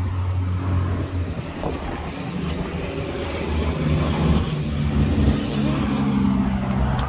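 A motor vehicle's engine running, its pitch rising about halfway through and holding there until near the end.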